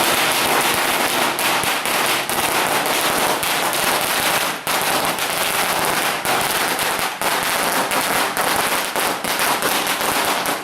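Large firecrackers going off in a rapid, continuous crackle of sharp bangs that starts suddenly and keeps going.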